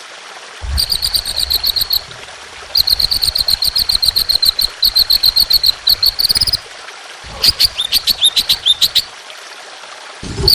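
Songbird song from a masteran training recording: long rapid runs of sharp, evenly repeated high notes in three bursts, the last a series of quick falling notes near the end.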